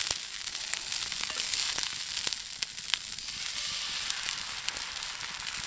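Bacon and eggs frying in cast-iron skillets over a campfire: a steady sizzle with scattered sharp pops.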